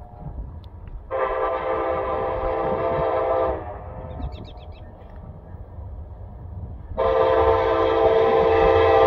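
Chime air horn of an approaching CPKC freight locomotive, an SD70ACe, sounding two long blasts: the first about a second in lasting two and a half seconds, the second starting about seven seconds in and still going at the end. Each blast is a chord of several steady tones, over a low rumble.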